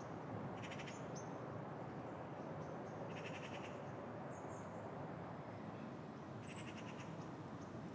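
Distant crows cawing: three short calls spread through, over a steady low background hum.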